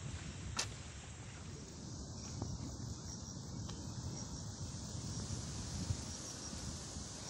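Breeze rumbling on the microphone on an open hilltop, with faint insects chirping in a high, steady drone; a single sharp click just over half a second in.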